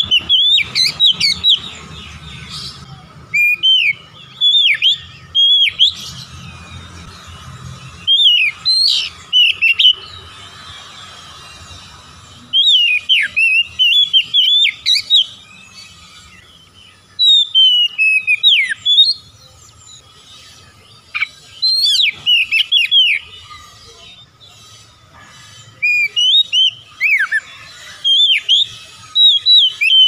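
Male oriental magpie-robin singing: bursts of rapid, clear whistled notes that sweep up and down. There are about seven phrases, each a second or three long, with short pauses between them.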